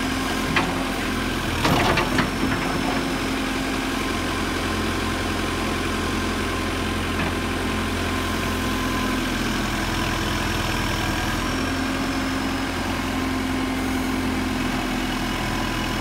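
JCB 214 backhoe loader's diesel engine running steadily while the backhoe arm is worked. A sharp clank comes about half a second in and a cluster of metal knocks about two seconds in.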